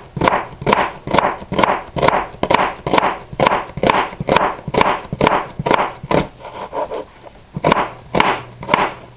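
Kitchen knife slicing through an onion and striking the cutting board in a steady rhythm, about two strokes a second, with a short pause past the middle before the slicing resumes.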